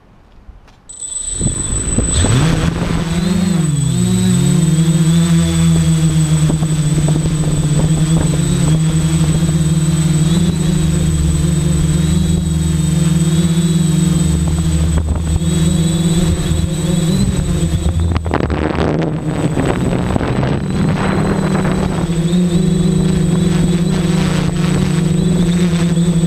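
XAircraft Super X quadcopter's electric motors and propellers spinning up about a second in with a rising whine. The pitch wavers briefly as it lifts off, then it holds a loud, steady buzzing drone as it climbs, heard from the camera mounted on the aircraft itself, with a faint high whine above it.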